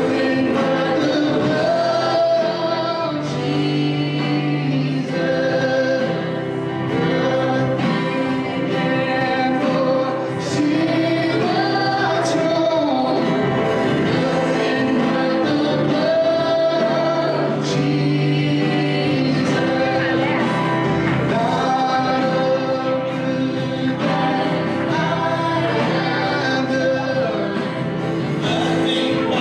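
Gospel worship music: a choir singing over instrumental backing, with occasional drum or cymbal hits.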